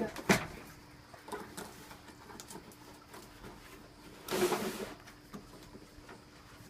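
Cardboard box and packing being handled as an airsoft rifle is pulled out: a sharp knock just after the start, faint rustles and clicks, and a longer rustling scrape about four seconds in.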